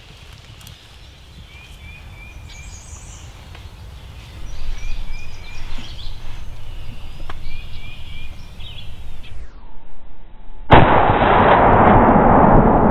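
Small birds chirping in short repeated phrases over a low rumble of wind on the microphone. Near the end, a sudden very loud shotgun blast at the strutting turkey, followed by loud continuous noise.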